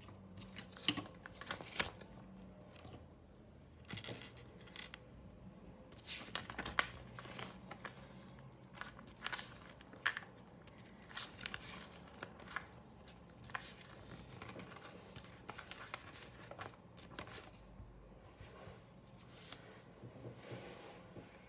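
Lego pieces and plastic packaging being handled: scattered irregular clicks, taps and rustles.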